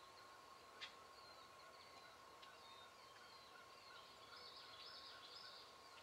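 Faint wild turkey gobble, a short rattling burst about four and a half seconds in, over faint songbird chirping and a steady thin hum. A single sharp click comes a little under a second in.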